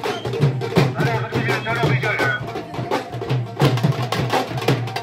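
A procession band of dhol-style barrel drums beaten with sticks, playing a fast, continuous rhythm of sharp strikes.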